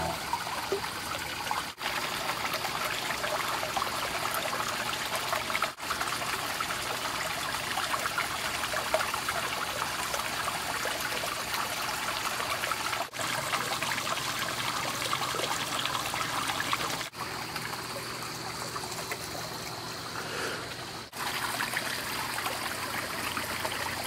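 Water trickling and splashing steadily into a garden pond, with a few very brief breaks.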